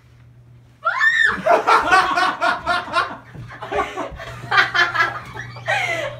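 A high excited squeal about a second in, then bursts of laughter and exclaiming from people overcome by a surprise.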